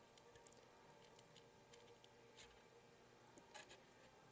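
Near silence: room tone with a few faint, light clicks from small parts being handled.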